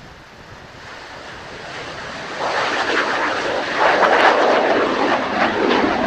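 Kawasaki T-4 jet trainer's twin turbofan engines at climb-out power as it lifts off from a touch-and-go and passes close by. The jet noise builds steadily, jumps up about two and a half seconds in, and stays loud with a coarse crackle.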